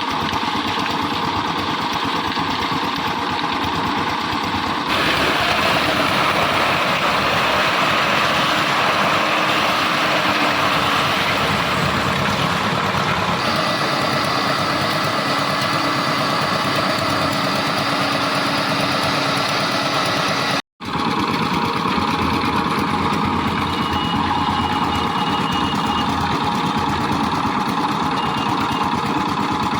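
Engine of a concrete mixer machine running steadily. The sound changes abruptly a few times at cuts, with a brief dropout about two-thirds of the way through.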